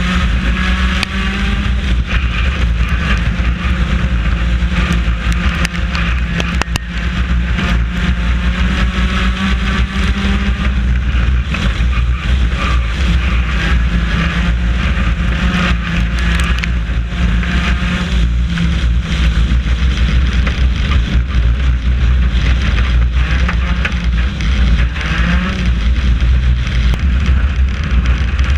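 Four-cylinder race car engine heard from inside the car at racing speed, its pitch rising and falling as the driver lifts and accelerates through the laps, with knocks and rattles from the car.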